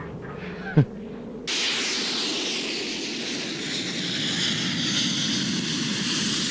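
A steady rushing roar, aircraft-like, cuts in suddenly about a second and a half in and holds on. Shortly before it comes a brief, loud, quick downward zip in pitch.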